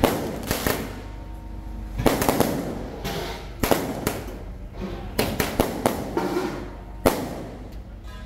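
Firecrackers going off in irregular sharp bangs, with a quick run of them a little past halfway and a last single bang about seven seconds in.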